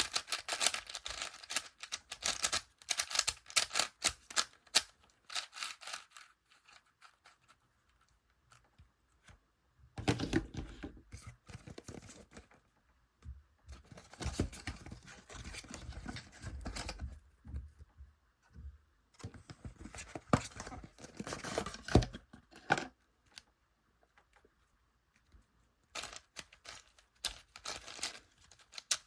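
Hands handling plastic puzzle cubes and their packaging: dense small clicks and rustling in several spells, separated by pauses of a few seconds, with one sharp knock in the last third.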